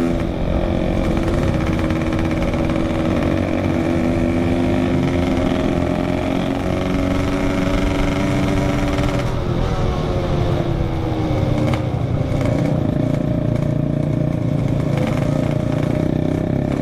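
Yamaha RX-King two-stroke single-cylinder engine with a Packing Power expansion-chamber exhaust, heard while riding: its note climbs steadily as it pulls through a gear, falls about nine seconds in, then climbs again. A steady low rumble runs underneath.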